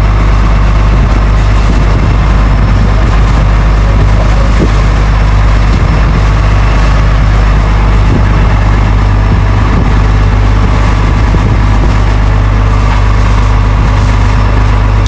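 Fishing boat's engine running steadily underway, a loud, even low drone.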